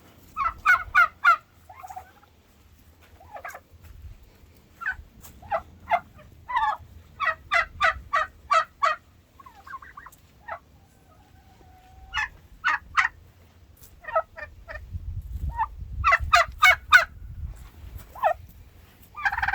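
Domestic turkeys calling in quick runs of short, sharp notes, several runs with pauses between them.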